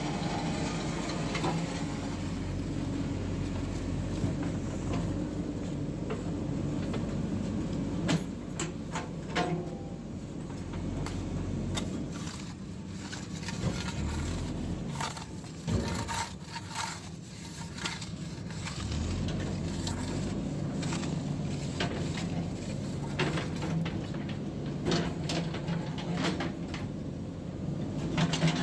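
JCB 3DX backhoe loader's diesel engine running steadily, with scattered sharp knocks and clanks: a cluster about eight seconds in, more through the middle, and again near the end.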